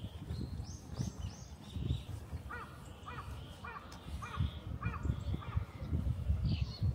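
A crow cawing, about six caws in quick succession in the middle, with a few short higher chirps from another bird near the start. Low thuds and rumble run underneath.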